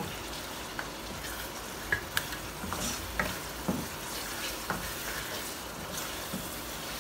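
Mutton and spice masala frying in oil in a karahi, sizzling steadily while a wooden spatula stirs and scrapes the pan, with scattered light knocks. This is the bhuna stage, the masala being fried until the oil rises to the top.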